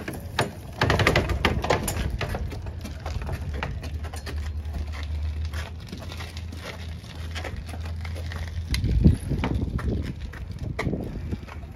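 A loaded two-wheel dolly being wheeled over grass and onto concrete: its metal frame and dangling chains rattle and clatter as the knobby tyres roll, over a low rumble, with a heavier thump about nine seconds in.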